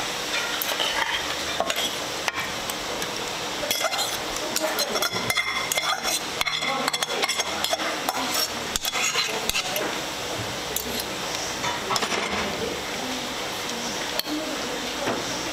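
Metal spoon scraping and clinking against a pot and a glass baking dish as sliced potatoes are tipped out and spread, with many short clicks over a steady hiss.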